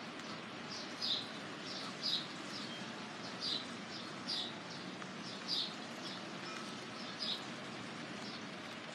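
A bird chirping about once a second with short, sharp, high chirps over a steady hiss of falling rain. The chirping stops near the end.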